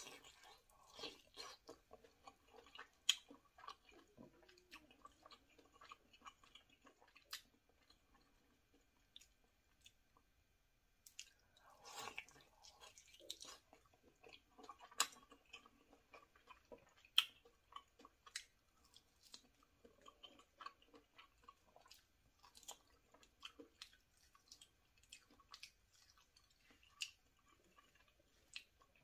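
Close-miked biting and chewing of a fried lollipop chicken drumstick: irregular wet mouth clicks and soft crunches, with a denser run of bites about twelve seconds in.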